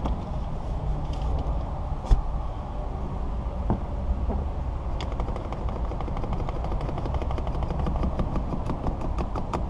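Hand-cranked windshield cut-out wire winder ratcheting, a fast run of clicks starting about halfway through as the cutting line is wound in through the soft urethane glue. A steady low rumble runs underneath.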